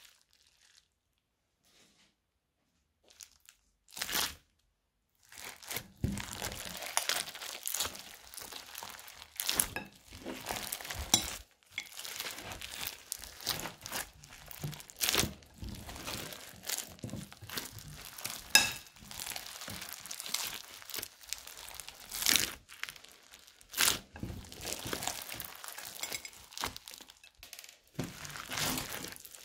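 Foam-bead slime being squeezed and kneaded by hand, crunchy crackling with many sharp pops as the beads are pressed. The crackling starts after about five fairly quiet seconds and then keeps going.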